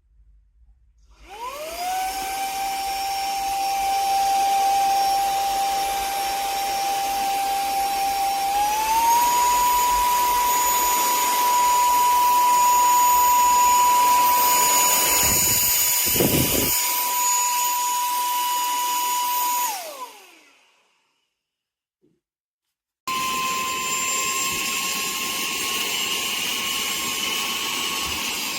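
Brushless motor of a WADEO 3-in-1 cordless handheld vacuum switched on and spinning up to a steady whine, stepped up to its higher power setting partway through, then switched off and winding down. After a few seconds of silence it starts again abruptly at the higher speed.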